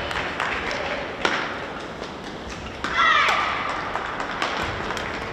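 Badminton rally: sharp racket strikes on the shuttlecock and thuds of footwork on the court, the last strike about a second in. About three seconds in a player lets out a short, loud shout as the point is won.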